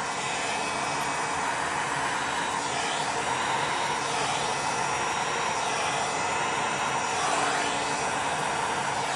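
Electric heat gun running steadily, a continuous blowing whoosh with a faint motor hum, its hot air played over wet resin to bring up lacing and cells.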